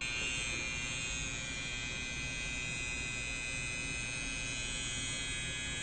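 Electric hair clippers running with a steady buzz, starting abruptly.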